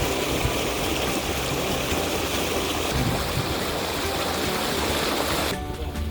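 Stream water rushing over stones, a steady hiss. It cuts off abruptly near the end, giving way to quieter music.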